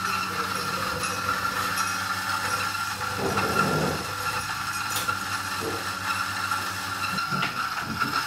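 Espresso machine pump running steadily with a hiss as a shot pours into a glass, with a couple of light knocks near the end.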